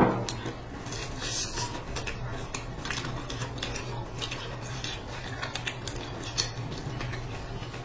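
Close-miked eating sounds: a crisp fried pancake torn by hand and bitten, its crust crackling in quick irregular clicks, with a sharper crunch about six seconds in. A low steady hum runs underneath.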